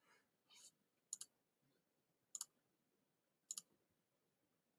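Faint clicks of a computer mouse button, three quick pairs about a second apart, as tools are picked on an on-screen toolbar.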